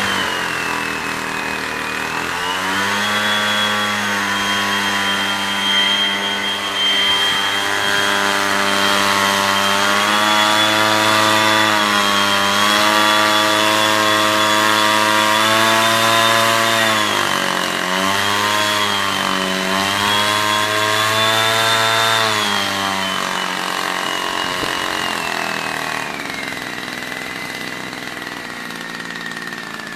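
Gasoline backpack mist blower (atomizer) running at high throttle: a two-stroke engine note with a high fan whine riding above it. The pitch dips briefly a couple of times in the middle, then sinks slowly as the sound grows quieter over the last several seconds.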